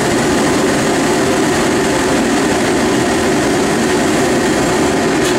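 DB class 23 steam locomotive 23 076 blowing off steam: a loud, steady hiss of escaping steam.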